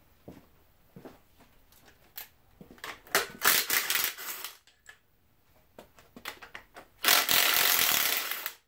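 Light metallic clinks of a steel chain against a cast-iron engine block, a louder rattle about three seconds in, then a cordless impact driver hammering steadily for about a second and a half near the end, backing out a bolt, before it cuts off.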